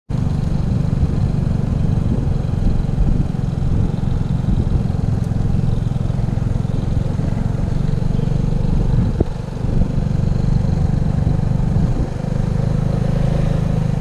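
Vespa Sprint scooter's engine running while riding at low speed, with a heavy low rumble of wind buffeting the handlebar-mounted microphone. The sound dips briefly twice in the second half as the throttle eases off.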